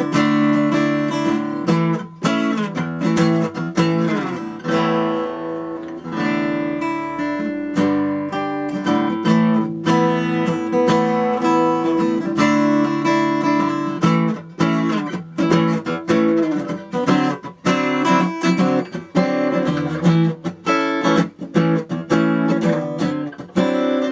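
A 1980 Hofner six-string acoustic guitar being played, with strummed chords and picked notes.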